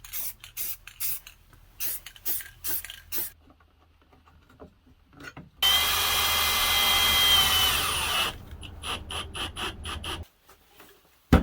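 Repeated hand-tool strokes, about three a second, then a small power tool runs for nearly three seconds with a steady high whine. More strokes follow, then a single sharp knock at the end.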